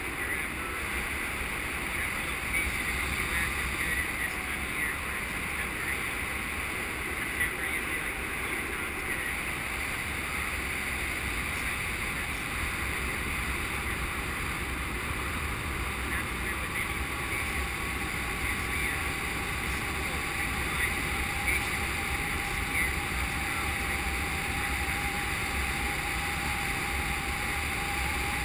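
Steady wind noise rushing over the microphone of a camera riding on a paraglider in flight, an even hiss with a low rumble that never lets up.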